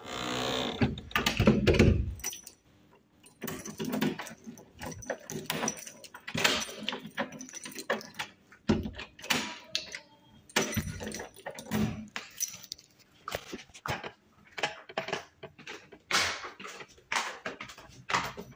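Keys jangling on a keyring and a door lock clicking as a key is turned in a wooden door, with knocks of the door being handled; footsteps on stone stairs near the end.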